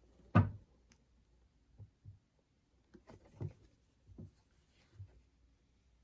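A sharp knock about half a second in, then a series of softer low thumps and knocks: objects being handled and set down on a hard surface.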